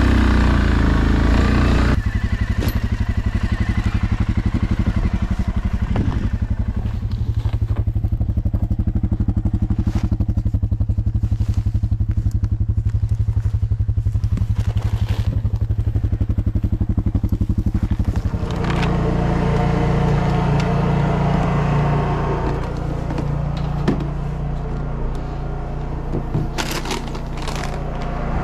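ATV engine running: louder for the first couple of seconds, then settling to a steady low running note with a fast, even pulse. About two-thirds of the way through the engine note changes to a heavier, noisier one, and a few sharp knocks come near the end.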